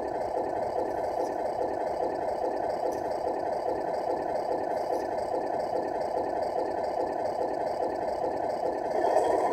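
Simulated diesel truck engine idling from the Tamiya MFC-01 multi-function unit's small speaker: a steady, evenly pulsing idle that grows louder near the end.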